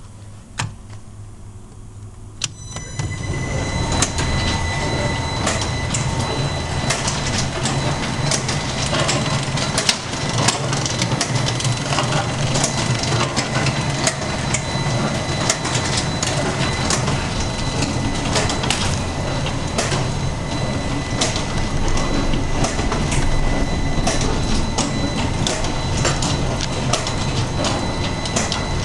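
Mammens Maskiner K3G automatic end-load cartoner starting up about three seconds in, then running steadily: a dense mechanical clatter of rapid clicks over a low hum and a thin steady whine.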